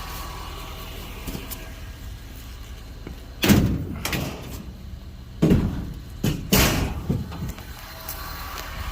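Steel chairs thrown into a pickup truck's bed: a series of about five or six loud metal bangs and clangs with short ringing, coming in two groups a couple of seconds apart.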